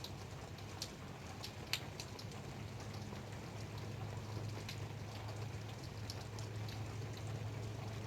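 Light rain: scattered drops ticking sharply on a surface over a soft steady patter, with one louder drop a little under two seconds in. A steady low hum runs underneath.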